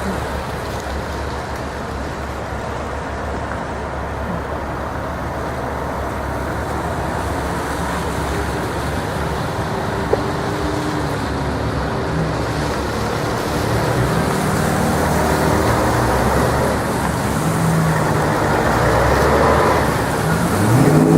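Road traffic passing on a street, a steady rumble of car engines and tyres that grows louder over the second half as vehicles come closer, with engine pitch rising right at the end. A single sharp click about halfway through.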